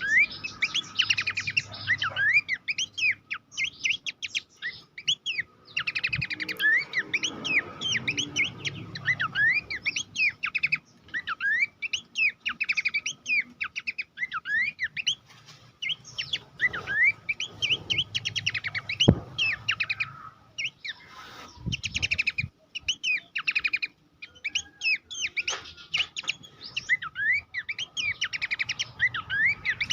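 Pelanduk semak (Horsfield's babbler) singing: fast runs of short, sharp whistled notes that sweep up and down in pitch, broken by brief pauses.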